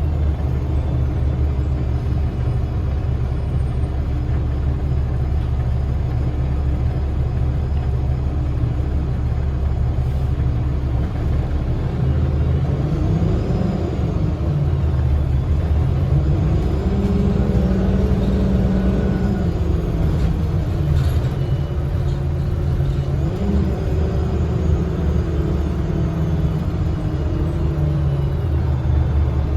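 Cummins ISL inline-six diesel engine and Voith automatic transmission of a 2010 Gillig BRT transit bus, heard from inside the bus as a steady low rumble. The engine note rises and falls a few times as the bus pulls away and eases off, most clearly in the middle.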